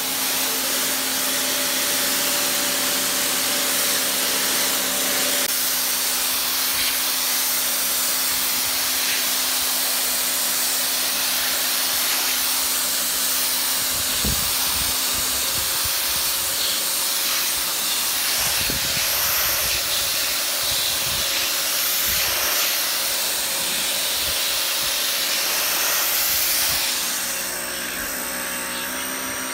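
Cecotec HidroBoost 1600 electric pressure washer running, its water jet hissing steadily against stone paving over a steady motor hum. Near the end the hiss drops and the level falls a little.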